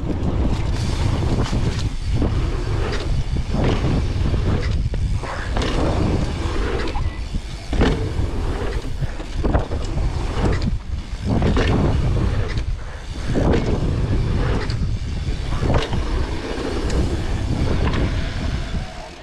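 Wind buffeting an action camera's microphone as a mountain bike rides fast down a dirt trail and over dirt jumps, a steady low rumble with frequent sharp knocks and rattles from the bike and tyres on the dirt.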